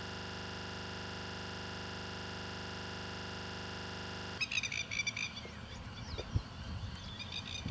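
A steady, unchanging buzz from a stuck, looping audio glitch that lasts about four and a half seconds and cuts off suddenly. Then the outdoor background returns, with birds chirping and a soft knock.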